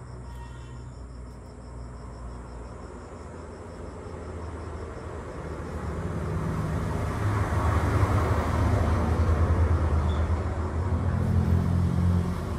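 Low engine rumble, growing louder from about halfway through, with a faint, high, evenly repeated ticking in the first half.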